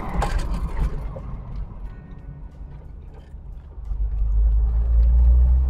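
Jeep Wrangler TJ braking hard from about 60 mph to bed in new front brakes: road and engine noise fades as it slows, with a faint tire squeal during the stop. About four seconds in, the engine rumble builds again as the Jeep speeds up.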